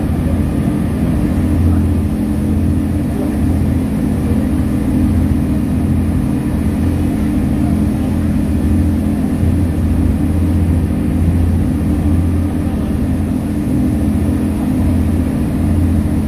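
A ferry's engine drones steadily, heard from the deck, with a constant low hum.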